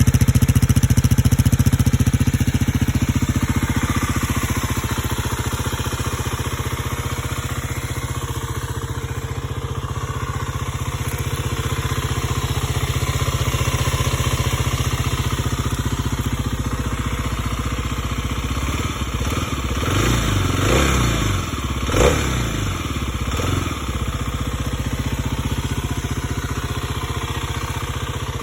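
2026 Kawasaki KLX300's single-cylinder four-stroke engine idling steadily, with a few short throttle blips about two-thirds of the way through. The revs are kept light because the motor is brand new.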